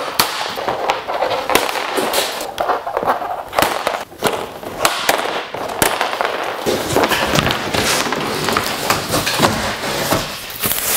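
Plastic packing straps snapping as they are cut with metal snips, then a jumble of sharp cracks and rustling as the straps are pulled off across the cardboard box and the cardboard lid is lifted.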